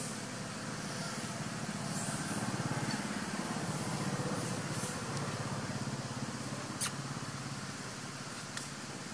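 Steady low hum of a vehicle engine running in the background, with a sharp click about seven seconds in and a fainter one near the end.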